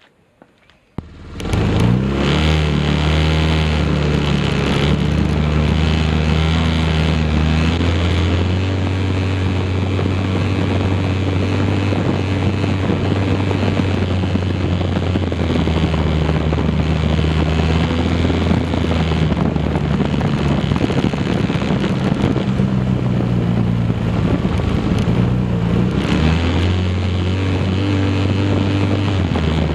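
Hytrack 170 ST quad's single-cylinder engine running steadily while riding along a dirt track, heard from a camera mounted on the quad, with wind and rumble over the engine. The engine note shifts up and down a few times. The sound cuts in abruptly about a second and a half in.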